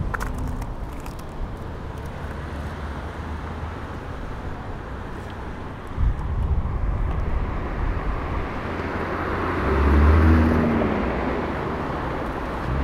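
Road traffic on a busy multi-lane city street, cars driving past steadily. About ten seconds in, one vehicle passes close, its engine tone rising and then falling as it goes by. A short low thump comes about six seconds in.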